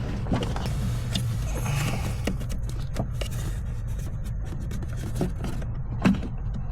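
Hands fumbling and scraping on the plastic HVAC blower motor housing under the dash, with scattered light clicks and a sharper click about six seconds in. A steady low hum runs underneath.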